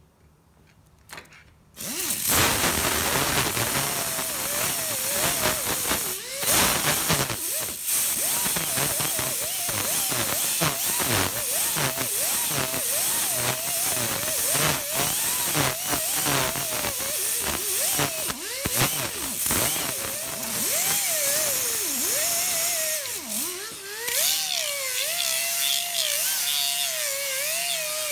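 Pneumatic right-angle die grinder with a small abrasive disc grinding an iron casting. It starts about two seconds in, and its pitch wavers as the disc is pressed into and eased off the metal.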